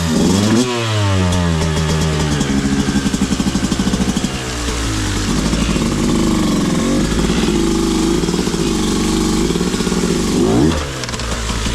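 Beta 200RR two-stroke dirt bike engine revving and running under load: the pitch climbs sharply about half a second in, wavers up and down with the throttle, then falls away near the end.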